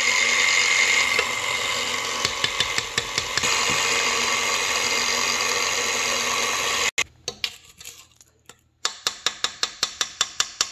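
Electric stand mixer running steadily with a high whine as its flat beater mixes pumpkin puree into creamed butter and sugar, cutting off suddenly about seven seconds in. Near the end there is a fast, even run of sharp ticks, about six a second.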